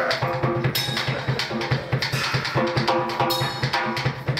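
A live band playing during a sound check: a drum kit keeps a fast, driving beat under sustained pitched instruments, with a cymbal crash about a second in and another past three seconds.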